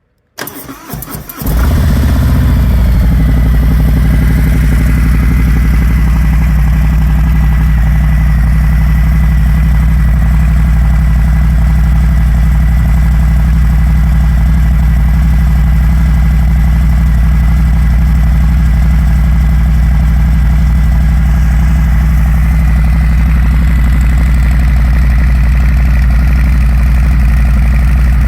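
Harley-Davidson Fat Bob 114's Milwaukee-Eight V-twin with Jekyll & Hyde exhaust started from cold: about a second of starter cranking, then it catches and settles into a steady, loud, deep idle.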